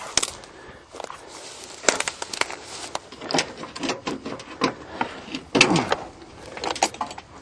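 Irregular clicks, knocks and short scrapes of things being handled, as hand work goes on at the van.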